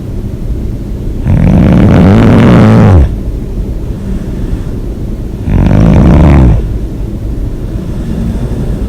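A person snoring loudly: two snores about four seconds apart, the first drawn out for nearly two seconds with a pitch that rises and falls, the second about a second long.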